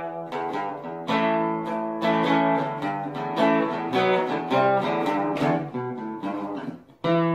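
Outro music on acoustic guitar: picked notes and strummed chords, with a new chord struck near the end that rings on.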